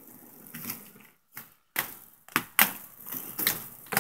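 A string of sharp, irregular clicks and knocks, after a short stretch of near silence a little over a second in.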